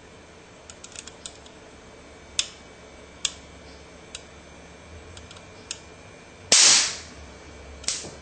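A disposable camera's charged flash capacitor, around 200 volts, shorted across its terminals with a screwdriver: one loud, sharp snap of the spark about six and a half seconds in, strong enough to arc-weld a mark into the screwdriver tip. A few light clicks of metal on the circuit board come before it.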